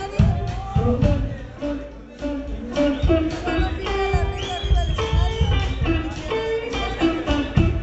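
Blues band playing: guitar notes bending and gliding over a steady low beat.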